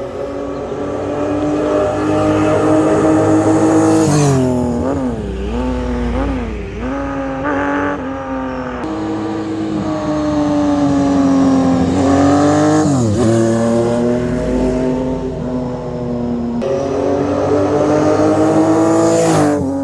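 Benelli Sei 900's inline six-cylinder engine running and being revved. Long stretches of nearly steady engine pitch are broken by a run of quick throttle blips a few seconds in, another blip past the middle, and a sharp drop in revs near the end.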